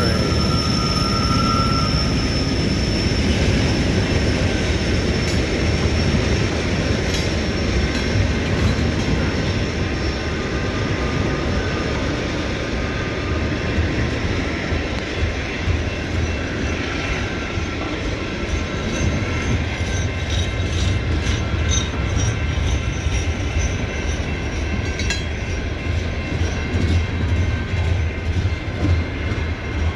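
Loaded coal hopper cars of a CSX freight train rolling past at close range: a steady rumble of steel wheels on rail, with a thin high wheel squeal in the first couple of seconds and scattered clicks and clacks from the wheels.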